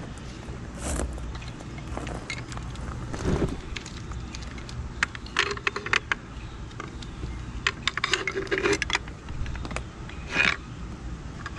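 Hands handling e-bike wiring, cables and plastic plug connectors: scattered light clicks and rattles, bunched about halfway through and again a little later, with a slightly louder rattle near the end.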